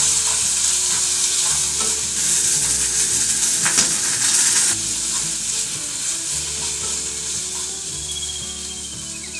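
Yakisoba frying in a pan with a steady sizzle, with one sharp clack about four seconds in. The sizzle eases slightly toward the end.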